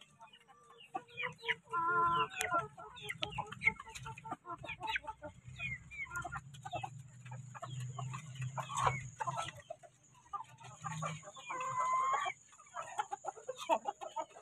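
Basilan native chickens clucking and calling while pecking feed from a wooden trough, beaks tapping the wood in quick irregular clicks. Two louder calls stand out, about two seconds in and again near twelve seconds.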